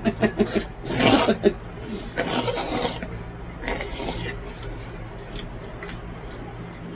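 A person slurping cold naengmyeon noodles and broth from a bowl: three noisy slurps about a second and a half apart, the last one near the middle, followed by a few faint clicks.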